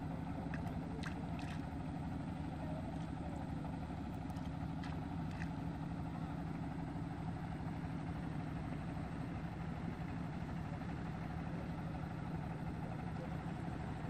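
A steady low engine drone that holds one pitch and level throughout, with a few faint ticks in the first five seconds.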